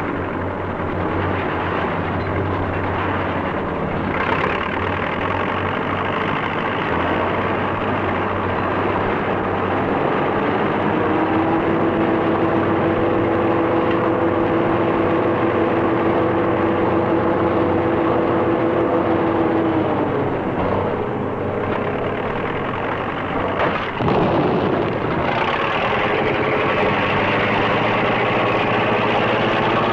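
Heavy engines running steadily, with a steady droning tone held for several seconds partway through and a brief jolt later on.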